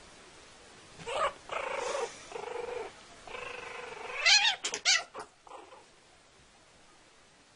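Kitten and puppy crying out as they play-fight: a few drawn-out, pitched cries starting about a second in, then a burst of louder, quick, swooping cries a little after the middle that fades out.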